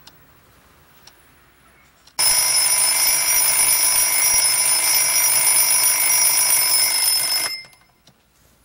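Alarm clock ticking faintly, then its bell ringing loudly about two seconds in. It rings steadily for about five seconds before stopping.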